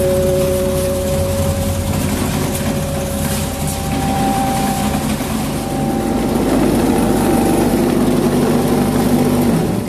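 Vibrating table under steel concrete door-frame moulds running with a steady mechanical hum, shaking the fresh concrete to compact and settle it. Its pitch drops just before the end.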